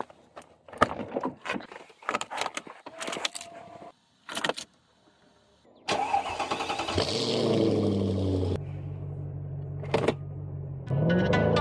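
A few clicks and knocks, then about six seconds in a Mercedes-Benz CL500's 5.0-litre M113 V8 cranks and starts, settling into a steady idle.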